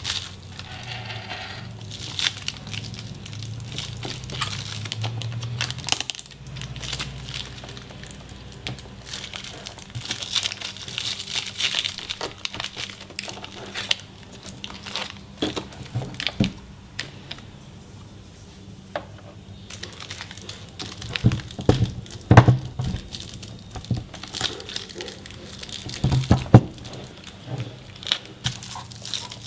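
Plastic wrap crinkling and rustling as it is handled around a monitor stand, with scattered clicks. Several louder sharp knocks come about two-thirds of the way in and again near the end.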